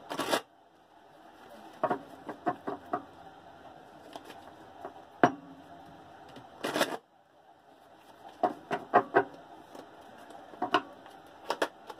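A deck of oracle cards shuffled by hand: irregular crisp snaps and taps of the cards against each other, in small clusters, with two short rustling bursts, one at the start and one just past the middle.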